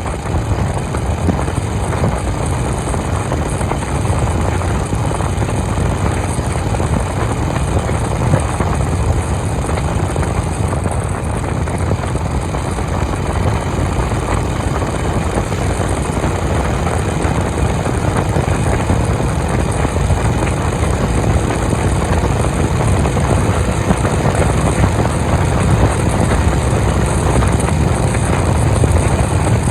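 Honda CB350 motorcycle engine running steadily at cruising speed on a highway ride, with no gear changes or breaks.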